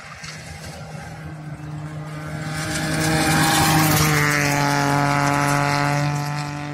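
Rally car passing close at full throttle on a gravel stage, its engine note held steady and gravel spray mixed in. It swells to its loudest about three to four seconds in, then fades as it goes away, the pitch dropping slightly.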